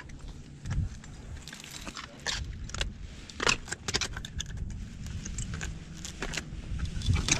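Metal climbing hardware such as carabiners clinking, with scraping on rock, in an irregular run of clicks and knocks while descending by rappel.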